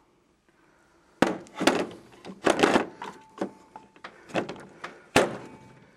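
Irregular clunks and metallic clinks of chrome sockets and ratchets being handled in a plastic tool case, with two sharp knocks, one about a second in and one near the end.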